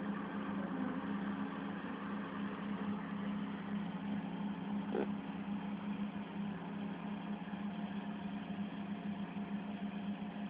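Combine harvesters working in a field, a steady, unbroken engine drone.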